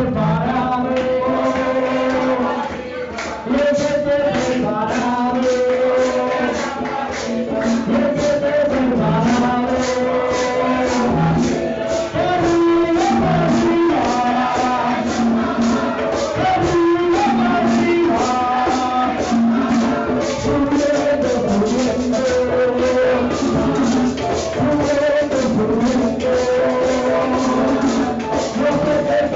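Church congregation singing a lively Pentecostal chorus with instruments over a fast, steady percussion beat.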